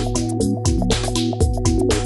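Background music with a steady beat, bass line and held notes.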